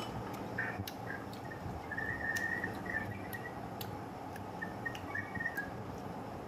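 Pot of sour soup bubbling at a steady boil on an induction cooker, with scattered light clicks of chopsticks and utensils against the pot and bowls. Faint short high chirps come a couple of seconds in and again near the end.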